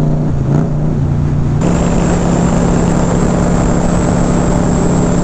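Motorcycle engine running steadily at highway cruising speed, with wind and road noise. Its note steps up slightly about a second and a half in.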